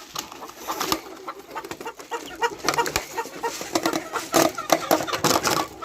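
Poultry clucking and calling over a dense run of short clicks and rattles while quails are fed.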